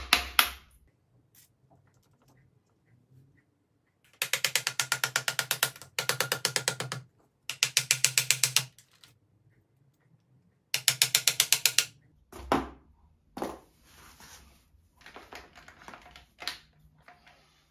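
Quick light hammer taps on a small screwdriver wedged into the jaws of a keyless drill chuck seized on its bit, about eight taps a second in four runs of one to two seconds with pauses between: tapping to loosen the jaws. Near the end, scattered knocks and handling noises as the drill is picked up and its chuck gripped.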